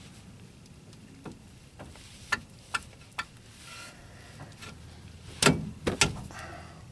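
Hand tools and brake parts being handled during a brake pad change: a few single metallic clinks, then a louder cluster of knocks about five and a half seconds in.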